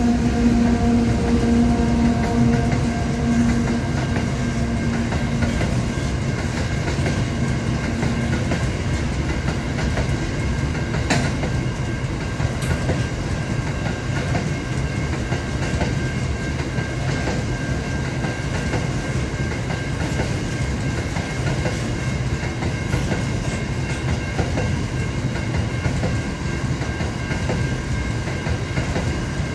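Aurizon minerals freight train's wagons rolling past in a steady, continuous rumble. Over the first eight seconds or so a pitched drone from the passing diesel locomotives fades out, and there is a single sharp click about eleven seconds in.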